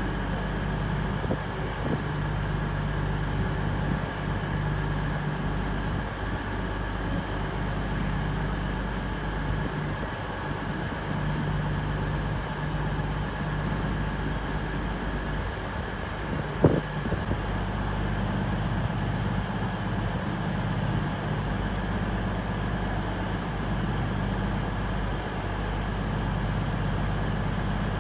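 Class 159 diesel multiple unit's engines idling steadily, a low drone with a faint steady higher tone over it. One sharp knock about two-thirds of the way through.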